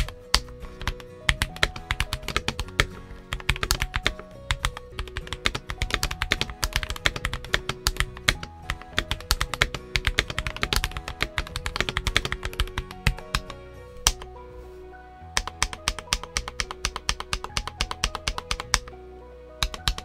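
Fast continuous typing on a Keychron V5 mechanical keyboard fitted with Akko Starfish switches and double-shot PBT keycaps, a dense run of key clacks over background music with a bass line. The typing pauses briefly about two-thirds of the way through and again near the end.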